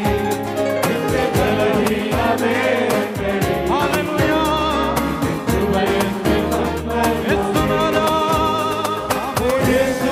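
A mixed group of men and women singing a Malayalam Christian worship song in unison through microphones. A band plays along with bass and a steady drum beat.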